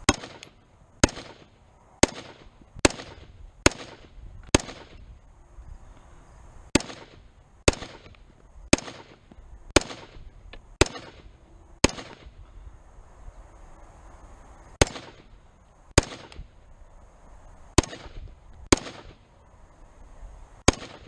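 Springfield Saint Edge AR-15 rifle firing cheap factory .223 ammunition in slow semi-automatic fire: about seventeen sharp cracks, roughly one a second, with two short pauses and a brief echo after each shot. It cycles the whole string without a stoppage.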